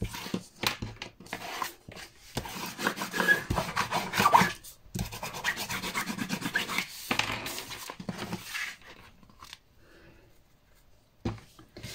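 Paper and card being rubbed and handled on a work surface: scratchy rustling with small knocks, dying away about three-quarters of the way through.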